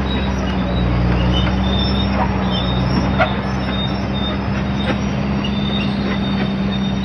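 1956 Caterpillar D9 crawler dozer working, its diesel engine running steadily under load, with short high metallic squeals and a couple of clanks from the running gear.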